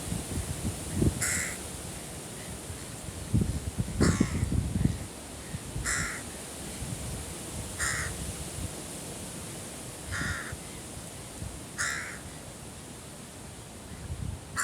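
Carrion crow cawing six times, one short harsh caw about every two seconds, with low rumbles in the first few seconds.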